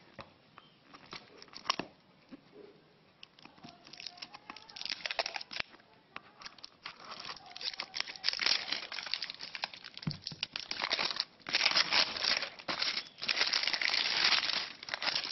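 Clear plastic shrink-wrap on a smartphone box being cut with scissors and pulled off, crinkling and tearing in irregular bursts. It starts faint and gets louder and denser in the second half.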